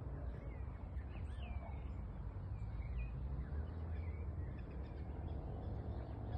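Birds chirping in short, scattered calls over a steady low rumble of wind.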